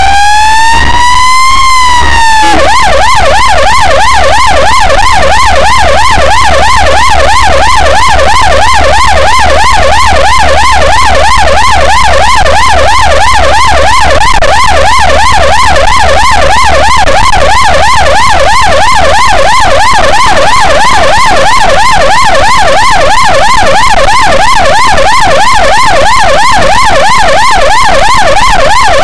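Ambulance siren heard from inside the ambulance while it drives. A slow rising wail switches, about two and a half seconds in, to a fast yelp that keeps going, with a low steady hum underneath.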